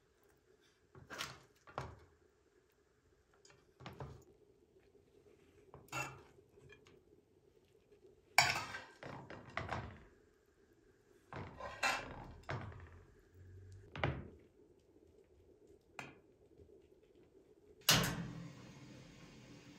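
Metal spoon clinking and scraping against a metal pan and a glass baking dish as chicken and eggplant filling is spooned onto a layer of rice, in a string of separate clinks and scrapes. Near the end comes one loud clunk from the oven door, then a low steady hum.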